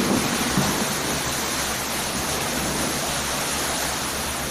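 River water rushing and washing in a steady, loud surge, typical of a boat's wake pushing waves against riverside houses.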